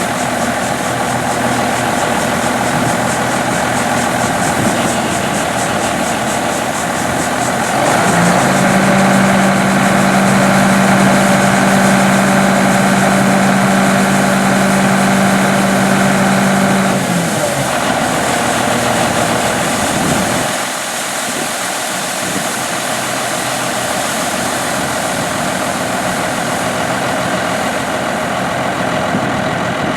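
Diesel engine of a Steiger Puma 1000 tractor running steadily in the field. It gets louder, with a strong steady hum, about a quarter of the way in. The hum drops away a little past halfway, and the engine sound eases down to a lower level.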